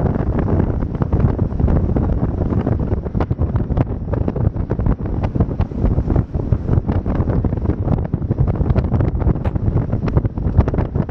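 Heavy wind buffeting the microphone on a fast-moving motorboat, with the drone of the boat's engine and hull slapping the water underneath; constant, irregular gusting throughout.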